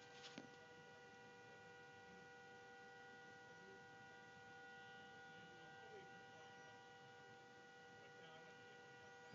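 Near silence, with a faint steady electrical hum made of several even, unchanging tones.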